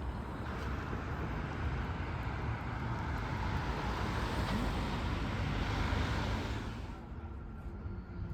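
Road traffic noise: a vehicle's rushing tyre and engine sound swells, peaks, then drops away abruptly about seven seconds in.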